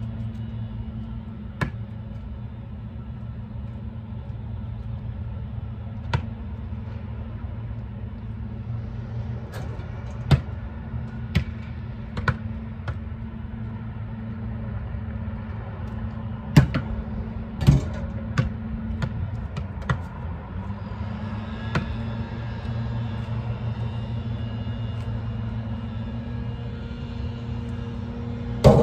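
Basketballs bouncing on asphalt and striking the hoop: about a dozen sharp thuds a second or more apart, the loudest near the end with a short ringing after it, over a steady low hum.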